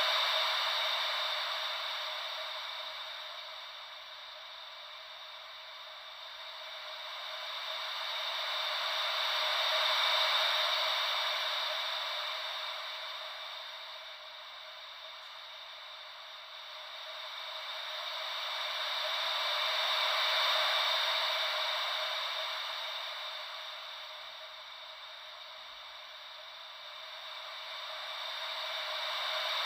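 Ocean-wave white noise: a steady hiss that swells and fades smoothly about every ten seconds, like gentle waves rolling in and out, with no deep rumble beneath it.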